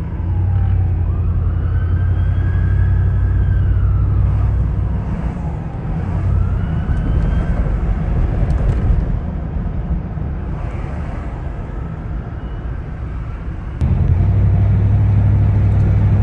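Freeway traffic: a steady low engine drone with vehicles passing, their pitch sliding up and then down as they go by. About 14 seconds in the sound jumps abruptly louder.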